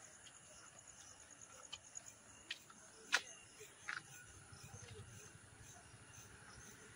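Faint night ambience: crickets chirping in a high, even pulse through the first couple of seconds, with a few short sharp clicks, the loudest about three seconds in.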